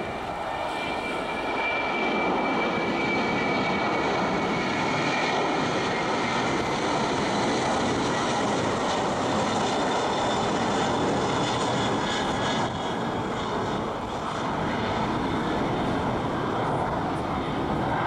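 Airbus A330-300's twin Rolls-Royce Trent 700 turbofans at takeoff thrust as the airliner lifts off and climbs away: a steady jet roar that swells about two seconds in, with a faint high whine over it in the first few seconds.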